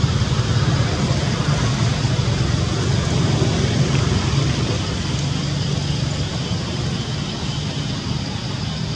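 A steady low rumble under an even hiss, easing slightly in the second half.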